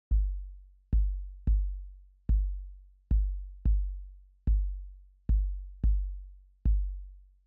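Intro music made of a deep drum-machine kick drum, about ten hits, each with a long booming low tail, falling into a repeating long-short rhythm.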